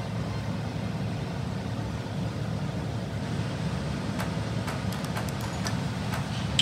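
Steady low rumble from a stovetop where noodles cook in a wok over a lit gas burner, with a few faint crackling ticks from about four seconds in.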